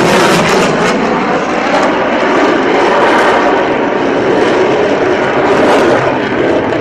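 Lockheed Martin F-22 Raptor's twin Pratt & Whitney F119 turbofan jet engines, loud and steady as the fighter manoeuvres overhead, easing slightly near the end.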